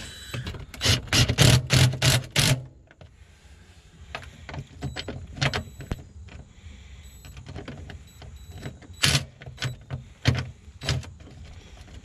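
DeWalt cordless impact driver running bolts into a steel floor cover plate in short bursts: a quick run of bursts about a second in, then single short bursts spread through the rest.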